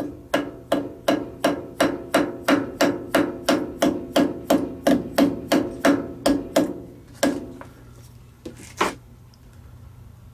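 Rapid, evenly spaced hammer taps on a metal workpiece, about three a second, each with a short metallic ring. They stop about seven seconds in, then two more knocks follow. The taps nudge the hub true in the lathe's four-jaw chuck while it is being indicated.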